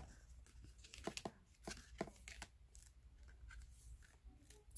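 Faint rustles and light taps of thick cardboard board-book pages being turned and handled, a few short clicks spread through the first half.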